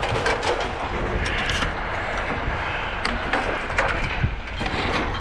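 Scrap metal clanking and rattling as pieces are tossed onto a pile, a few separate knocks over a steady low rumble.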